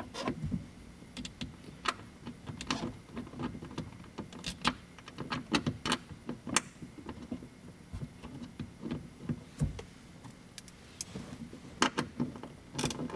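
Scattered clicks and taps of a wrench and plastic trim as the grab handle's bolts are driven back in, with a quick run of clicking near the end.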